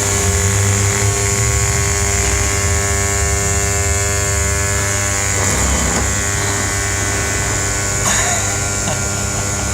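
Rewound microwave oven transformer buzzing steadily at mains frequency, its core vibrating under the heavy load of a short-circuited steel spanner across its secondary.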